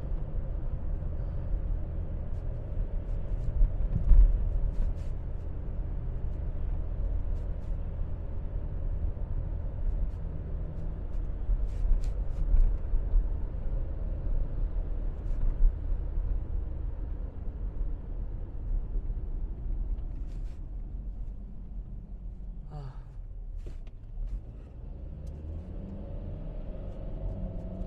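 Car driving along, a steady low road and engine rumble heard from inside the cabin, with a bump about four seconds in.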